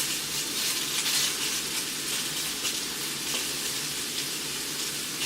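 Sausages sizzling in a frying pan: a steady frying hiss with light crackling.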